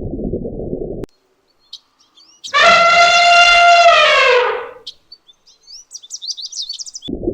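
A low rushing noise cuts off about a second in. Then comes one loud, drawn-out animal call of about two seconds, steady in pitch and sliding down at the end. Quick high chirps follow near the end.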